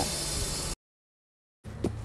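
Steady noisy hiss with a low drone beneath it, which the cook blames on a neighbour's grass-cutting machine, cuts off abruptly under a second in. About a second of dead silence follows, then a faint low hum returns.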